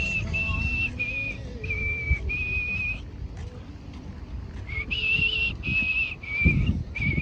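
A person whistling a tune: a run of clear, held notes, most about half a second long and shifting a little in pitch, with a pause of a second or so in the middle. A low rumble and a few dull thumps lie underneath.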